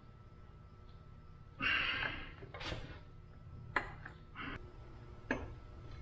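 A man's strained, heavy breathing and gasps as he heaves on a long breaker bar against a seized camshaft sprocket bolt, with a few sharp clicks from the tool.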